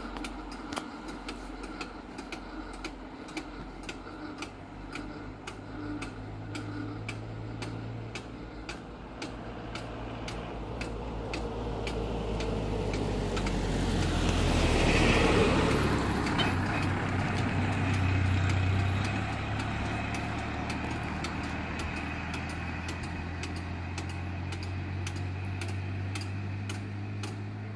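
A road vehicle passing close by, its engine and tyre noise swelling to a peak about halfway through and then fading, over a steady regular ticking.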